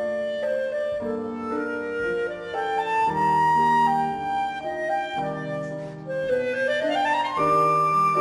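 Clarinet and piano playing a classical duo piece: the clarinet carries a melody of held and moving notes over piano accompaniment, with a rising run of notes near the end.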